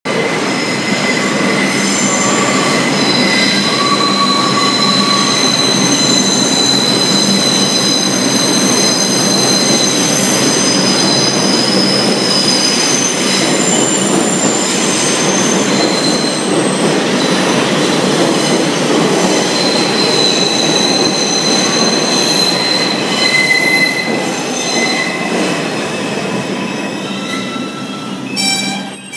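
New York City subway 5 train arriving on the far track and slowing to a stop, its steel wheels squealing in several high tones over the rumble of the cars. A quick run of sharp clanks comes just before the end.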